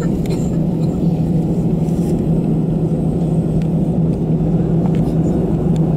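Airbus A319-111 cabin noise on the ground: the CFM56 engines at low thrust give a steady, even hum with a constant low drone. It does not rise in pitch, so this is taxi power, not the takeoff run.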